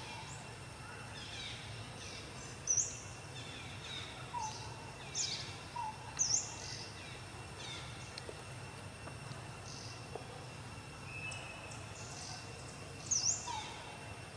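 Birds chirping: short, sharp high chirps every second or two, over steady outdoor background noise.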